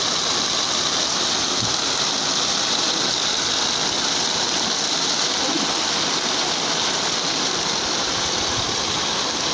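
Rain falling steadily outside a screened window: an even, unbroken hiss.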